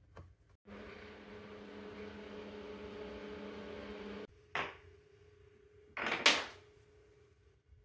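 Electric pottery wheel motor running with a steady hum for about three and a half seconds, then cutting off suddenly. A short knock follows, and near the end comes a loud slap of a clay block against the wooden work table.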